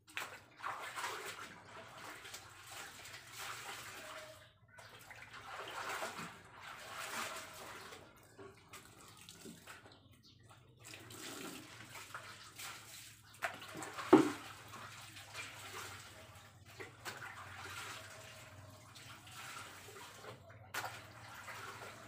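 Laundry being rubbed and sloshed by hand in a washing machine tub of water: irregular swishing and splashing, with one sharp knock about fourteen seconds in.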